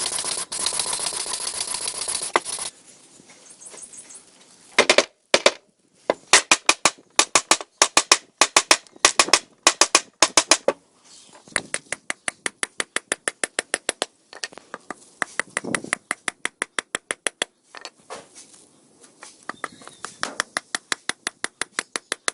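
A steady machine noise, like a power tool running, cuts off about three seconds in. Then come runs of sharp taps or knocks, several a second, that stop and start again a few times.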